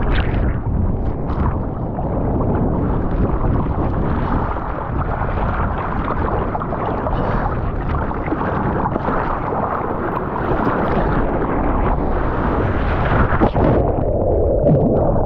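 Ocean water sloshing and rushing around the camera, with wind buffeting the microphone: a continuous, loud rush.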